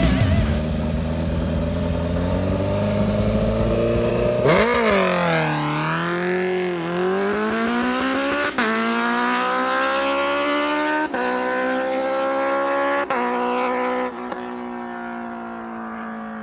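Honda CBR650F inline-four motorcycle accelerating hard away, its engine note climbing through each gear with three quick upshifts. The sound fades with distance near the end.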